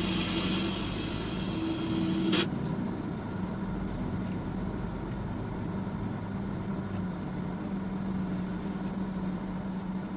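Truck engine running steadily with a low hum, heard from inside the cab. A sharp click comes about two seconds in, and after it a higher tone and hiss stop, leaving the engine hum.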